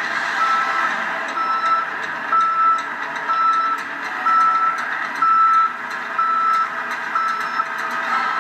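Reversing alarm on a heavy construction machine beeping steadily, about one beep a second, over continuous machinery noise.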